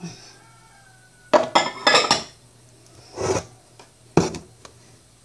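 Kitchenware clattering: a glass measuring cup and utensils clinking and knocking against a mixing bowl in a handful of separate knocks, with a faint ringing in the first second.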